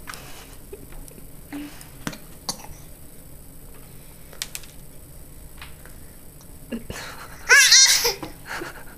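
A baby laughing once near the end: a short, loud run of rising-and-falling squealy notes lasting about half a second. Before it come a few light taps of small fingers on the plastic high-chair tray.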